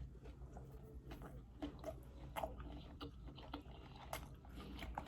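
A person chewing a big mouthful of sushi roll, with faint, irregular wet mouth clicks.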